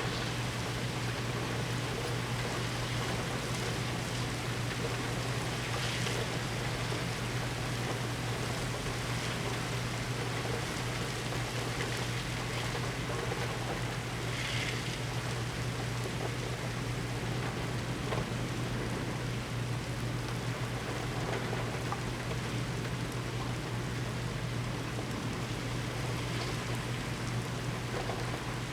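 Heavy thunderstorm rain falling steadily, with a steady low hum underneath.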